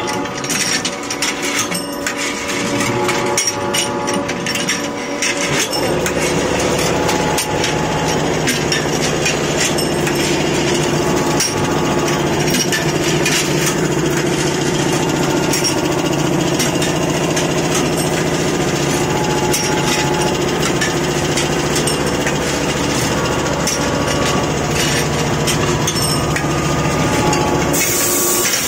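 Hydraulic thread rolling machine running, with frequent sharp metallic clicks and clatter. A deeper steady hum sets in about six seconds in and holds until near the end.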